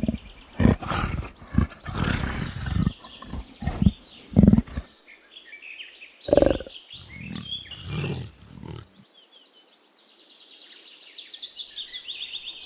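A big cat, given as a jaguar, gives a run of rough grunting roars, some short and some drawn out, for about nine seconds. After a brief pause, insects start a fast, steady, high chirring, like crickets.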